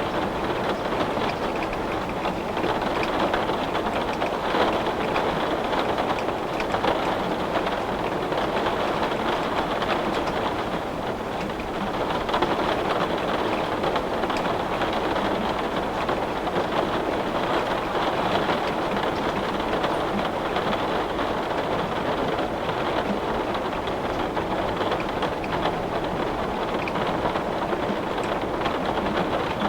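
Heavy rain beating steadily on a window pane: a dense, even hiss of many drops, easing slightly for a moment about eleven seconds in.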